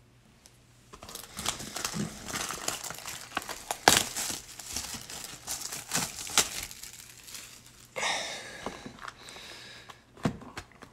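Clear plastic shrink-wrap being torn and crumpled off a sealed box of trading cards: a dense crackling full of sharp snaps, starting about a second in and loudest about four seconds in.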